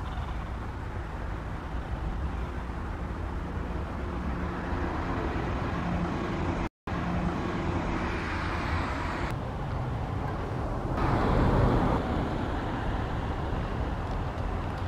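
Outdoor background of steady, distant road-traffic rumble, swelling louder for about a second around eleven seconds in as a vehicle passes. The sound cuts out completely for an instant near seven seconds.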